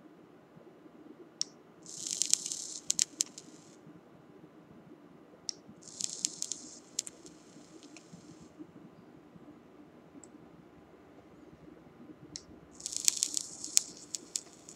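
The 1.3 ohm coil of an IGO-L rebuildable dripping atomizer is fired three times, each time for about two seconds. The e-liquid in its hemp-twine wick sizzles and crackles on each firing, and a sharp click comes just before each burst.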